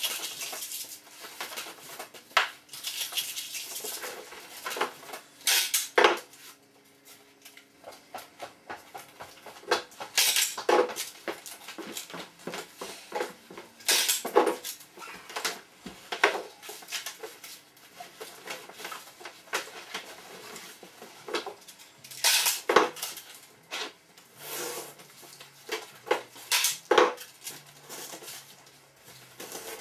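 Hard objects being handled: irregular clinking and clattering with a few louder sharp knocks every few seconds.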